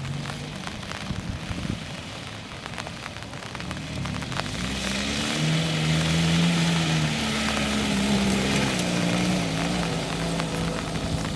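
A 4x4's engine working under load, growing louder about four and a half seconds in and wavering in pitch after, over a rough noisy background with scattered ticks and knocks.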